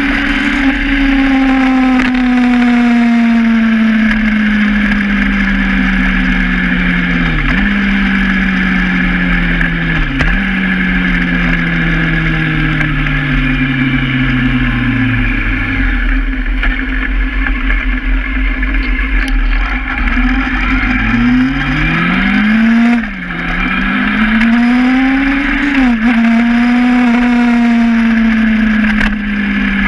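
Honda Hornet motorcycle engine heard from the bike, under steady wind rush. Its pitch falls slowly as it rolls off the throttle and slows, then about two-thirds in it revs up through two quick gear changes and settles to a steady cruise.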